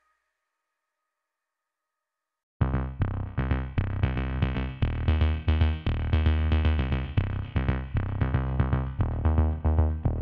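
Silence, then electronic music with a drum machine beat, synthesizer and heavy bass starts abruptly about two and a half seconds in.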